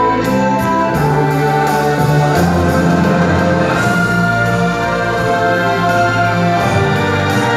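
Orchestral show music with sustained chords, played over a theatre's loudspeakers during a live stage performance.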